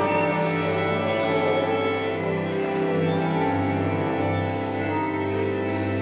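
Instrumental music: slow, sustained chords held by several instruments, with the notes changing only gradually.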